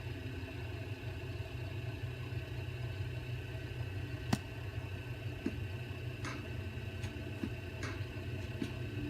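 Lathe motor running steadily while an acrylic pen blank spins, with one sharp click about four seconds in and a few faint ticks near the end.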